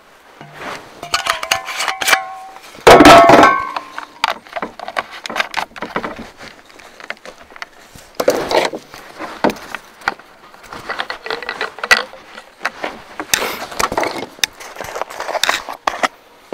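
Clinks, knocks and scrapes of a metal can and chainsaw caps being handled on a metal truck bed while the chainsaw is refuelled, with one loud ringing metal clank about three seconds in.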